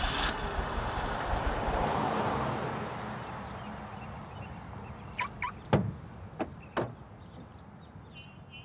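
A rush of noise that swells and fades out over about three seconds, then a few sharp clicks and one louder clunk around six seconds in as a hatchback's tailgate is unlatched and lifted.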